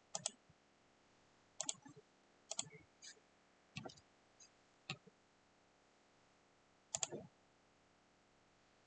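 About seven sparse clicks of a computer mouse, several as quick press-and-release doubles, spread over the first seven seconds.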